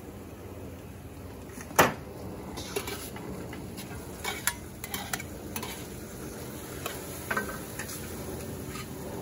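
Chicken strips sizzling in a carbon steel wok while a utensil stirs them, with one sharp clank against the wok about two seconds in and lighter scattered knocks and scrapes after it.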